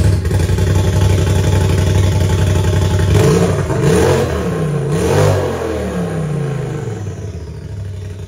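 Polaris RZR side-by-side engine running loud through a new straight-through Magnaflow muffler with no chambers, blipped up and down a few times around the middle and then easing back toward idle.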